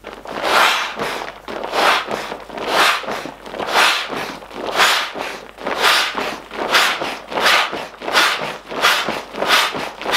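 Built-in foot pump of a Trekology Aluft UL140 inflatable sleeping mat being stamped on over and over to inflate it. Each press gives a rustling whoosh of nylon fabric and pushed air, about once a second.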